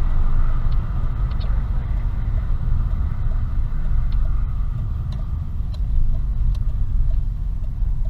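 Steady low rumble of a vehicle heard from inside the cab on a dash cam, with a few faint clicks.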